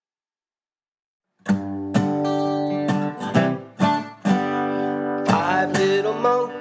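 Silence for about a second and a half, then a children's song intro starts on strummed acoustic guitar chords, with a melody line coming in near the end.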